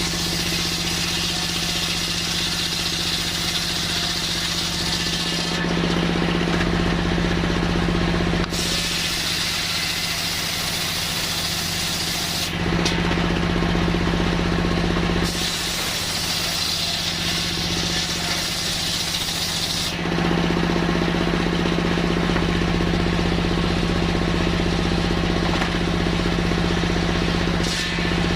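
Circular sawmill cutting coconut wood: a steady engine hum throughout, with a high hiss that comes and goes in spells of three to five seconds.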